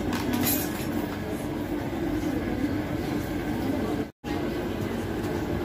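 Steady rumbling noise of a wok of water heating on the stove with wontons in it, cut briefly to silence about four seconds in.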